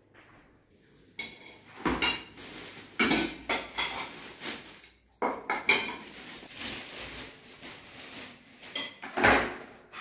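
Ceramic bowls and dishes clinking and clattering against each other as they are washed by hand in a plastic basin, starting about a second in and going on in irregular bursts, the loudest clatter near the end.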